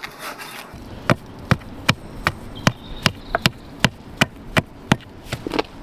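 Mallet striking packing inside a precast concrete EV block to bring it level, a steady run of sharp blows at about two to three a second, starting about a second in.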